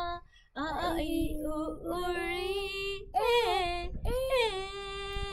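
A woman and a young girl singing together, holding long notes.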